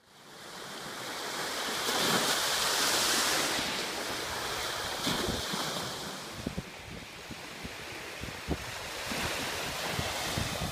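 Small Baltic Sea waves breaking and washing up a sandy shore, the surf swelling loudest a couple of seconds in and again near the end, with wind buffeting the microphone in short low thumps.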